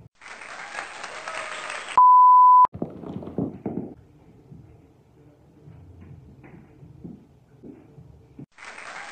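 A loud electronic bleep, one steady pure tone held for under a second about two seconds in, set between two noisy edited-in bursts, the second starting near the end.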